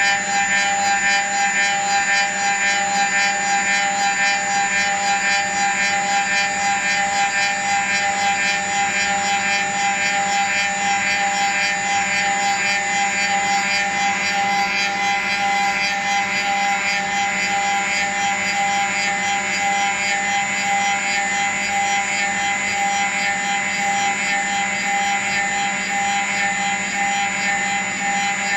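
CNC paint brush handle machine cutting a spinning wooden handle blank: the cutter spindle whines steadily over a continuous wood-cutting noise.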